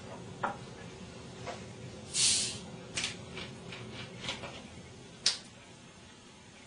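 Plastic Pepsi bottle being opened: a short hiss of escaping carbonation about two seconds in, with light clicks and taps of the screw cap and bottle handling before and after it.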